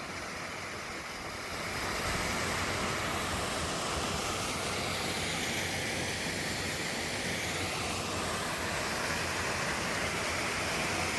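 Steady rushing of a waterfall's falling water, growing a little louder about two seconds in and then holding steady.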